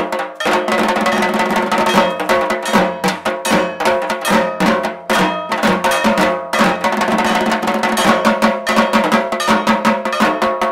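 Fast percussion music: rapid drumming with a steady metallic clanging over it.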